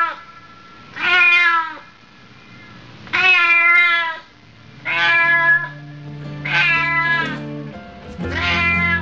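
A cat meowing over and over, about five drawn-out meows spaced a second or two apart. Music joins underneath about halfway through.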